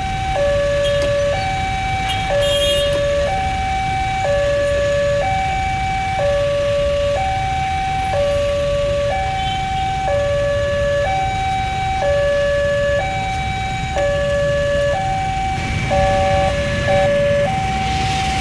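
Railway level-crossing warning alarm: an electronic two-tone signal alternating between a higher and a lower note, each held about a second. The rhythm stutters briefly near the end, over a steady low rumble of road traffic, as the crossing closes and its barriers come down.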